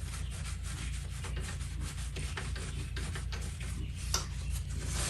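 Rubbing and polishing strokes on the jukebox's metal write-in hammer, a run of quick irregular scratchy strokes over a steady low hum.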